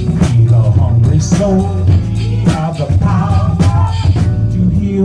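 Live rock band playing: electric guitar, bass and drum kit, with a male voice singing the lead line.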